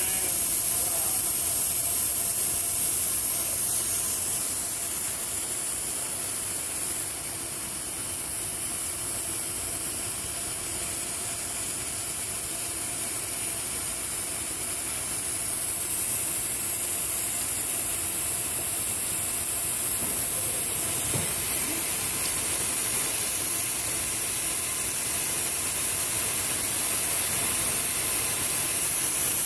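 Steady high-pitched hiss, even and unbroken, with a faint low hum beneath it.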